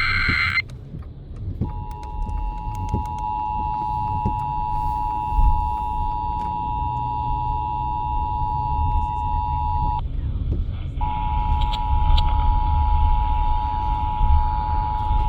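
Emergency Alert System broadcast over FM radio: the tail of a SAME data burst, then the steady two-tone EAS attention signal (853 and 960 Hz together), which breaks off for about a second near ten seconds in and then resumes, over a constant low rumble.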